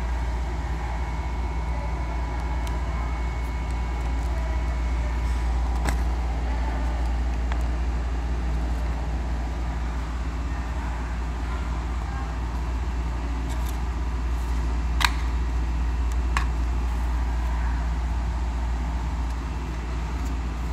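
Steady low rumble of a car's running engine and cabin noise, with a few sharp clicks and paper crinkles from the fast-food wrappers and bag being handled.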